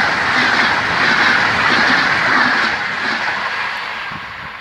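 Intercity passenger train passing at speed close by: a steady rush of wheels on rail and air. About three seconds in it starts to fade as the last coach goes by and the train moves away.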